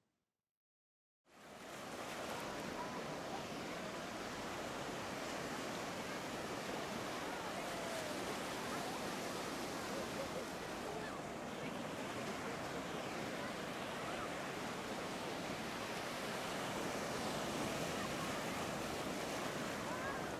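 Ocean surf washing in, a steady rush of water noise that starts about a second in after a moment of silence.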